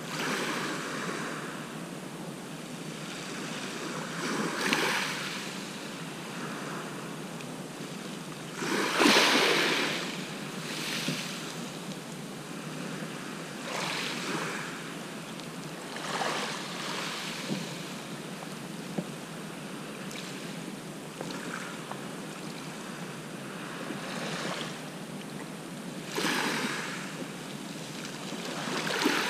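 Small sea waves breaking and washing up a shingle beach, a steady hiss that swells every few seconds as each wave comes in, the largest about nine seconds in.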